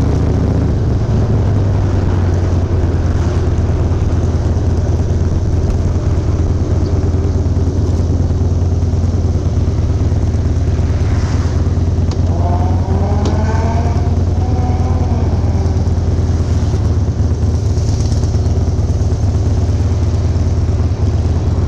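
Harley-Davidson Softail's V-twin engine running steadily while the motorcycle cruises, heard from the seat with wind noise. Its pitch steps up slightly about a second in, and a brief rising whine from traffic comes through about halfway.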